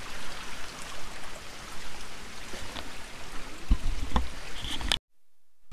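Rainwater flowing and trickling in a small stream, a steady rush of water. A couple of low thumps come near the end, and the sound cuts off abruptly about five seconds in.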